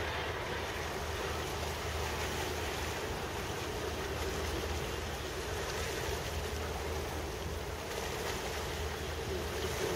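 Steady low drone of a boat's engine, mixed with wind and water noise.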